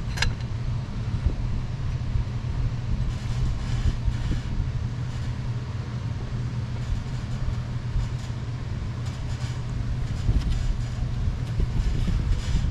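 A steady low hum, with a few light metallic clicks and clinks as a new intake plenum is set by hand onto a 7.3 Powerstroke diesel engine.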